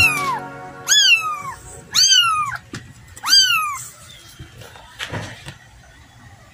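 A 17-day-old kitten mewing: four high, crying mews about a second apart, each rising then falling in pitch. The mews stop about four seconds in.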